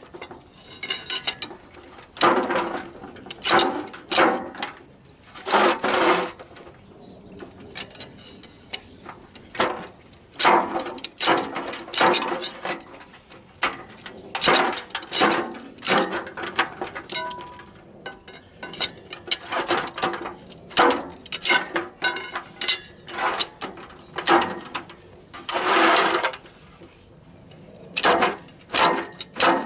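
A long steel pry bar levering and scraping inside the bore of a semi truck's cast wheel hub, prying out the old, leaking axle grease seal: repeated irregular metal clanks and scrapes, some drawn out over a second or so.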